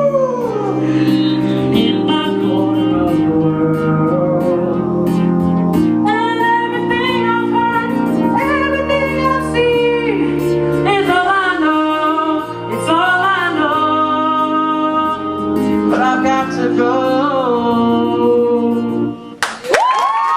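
A pop song playing with a sliding, wordless singing melody over band backing with chords and bass, which switches suddenly to a held high chord near the end.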